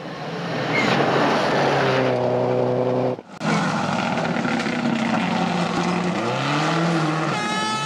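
Rally cars at speed on a gravel stage: the engines run hard at high revs, with the pitch rising and falling as the drivers come on and off the throttle, over a steady hiss of tyres and gravel. The sound breaks off abruptly for a moment about three seconds in.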